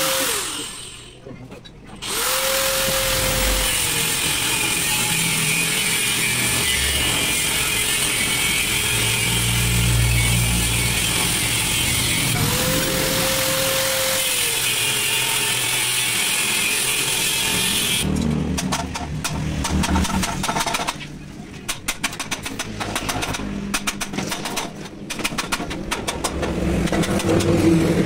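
An electric power tool working metal: a steady harsh hiss with the motor's whine sagging and picking back up now and then, briefly stopping near the start and cutting off about 18 seconds in. After it, a run of irregular knocks and clanks.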